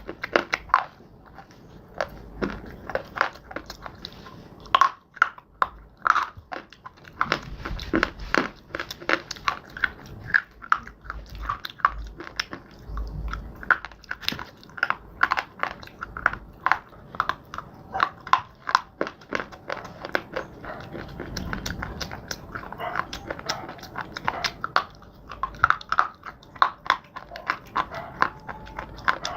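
Biting and chewing of crunchy clay and slate: a steady run of sharp, dry crunches, several each second.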